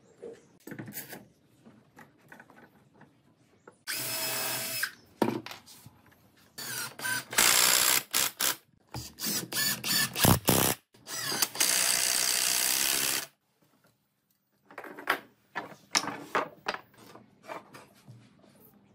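A Hitachi cordless drill with a twist bit drilling into a clamped wooden frame corner, in three short runs of a steady motor whine, with knocks of wood being handled between and after them.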